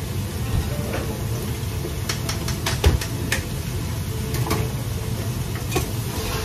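Busy restaurant wok station: a steady low rumble from the extractor hood and burners, with scattered metallic clinks and knocks of a ladle and utensils against the wok and pots. A quick run of clinks comes around the middle, the loudest knock just before it.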